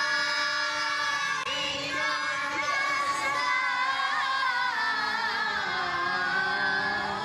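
Quran recitation chanted melodically in tilawah style. It opens on a long held note, breaks briefly about a second and a half in, then moves through wavering, ornamented melodic phrases.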